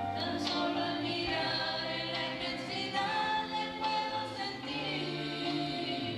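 Small mixed group of men and women singing a hymn together into microphones, holding long notes in harmony.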